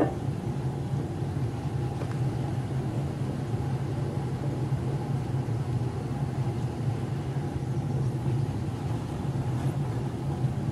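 Hair dryer running steadily: a constant low hum with an even rush of air.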